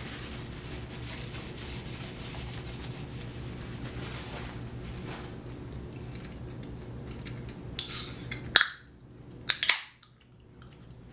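Close-miked eating sounds: chewing a bite of deep-dish pizza over a steady low hum, with a few sharp clicks and clatters of knife and fork on the plate about eight and nine and a half seconds in.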